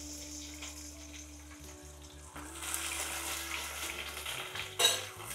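Onions frying in hot oil in a pan, the sizzle picking up about two seconds in. A brief knock near the end.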